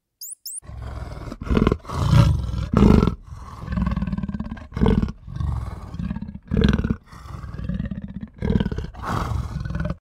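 Cheetah giving low, rasping growls in a run of breaths, with louder bursts every second or two.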